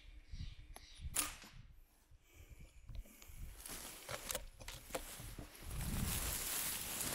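Footsteps and rustling through dry leaf litter in woodland, with one sharp crack about a second in and louder rustling near the end.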